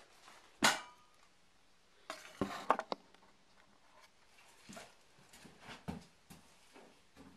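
A metal object clangs once sharply with a brief ring, then a quick cluster of clattering knocks follows and a few lighter knocks and handling sounds come after.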